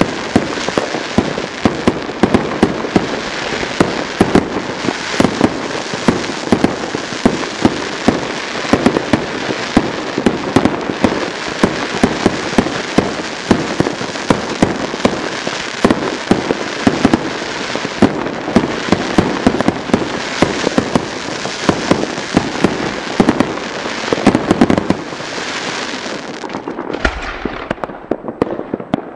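Aerial fireworks going off in a continuous rapid barrage of bangs and crackles as shells burst overhead. The barrage dies away in the last few seconds.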